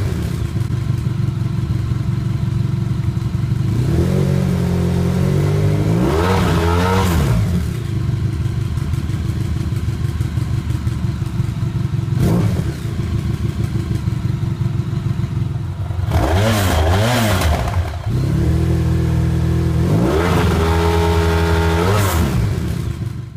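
Honda VFR1200's V4 engine idling through a Delkevic carbon slip-on exhaust, blipped on the throttle several times so the revs rise and fall. The longest rev comes a few seconds in, with clusters of quick blips later.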